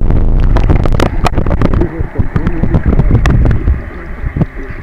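Phone microphone held underwater in a river: a loud, muffled rumble of water on the mic with many sharp knocks, easing off after about three and a half seconds.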